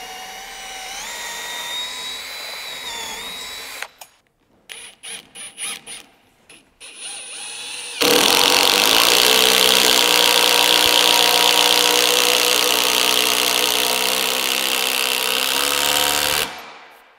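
A cordless drill runs for about four seconds with a whine that steps up in pitch. After a few knocks, a much louder power driver runs steadily for about eight seconds and then stops suddenly, driving a long lag screw through the handrail into the post.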